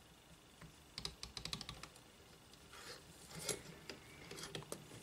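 Small metal clicks and rattles as the steel edge-guide bar of a cordless jigsaw is handled and slid through the slots of its metal base plate. A quick run of clicks comes about a second in, then scraping and more clicks from about three seconds.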